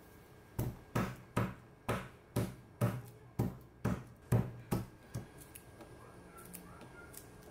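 A granite pestle pounding garlic cloves on a wooden cutting board to crush them: about eleven sharp knocks, roughly two a second, stopping about five seconds in.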